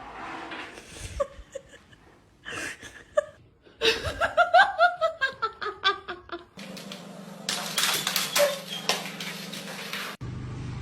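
A person laughing: a quick run of "ha" pulses, falling in pitch, starting about four seconds in. After it comes a steady low hum with scattered clicks.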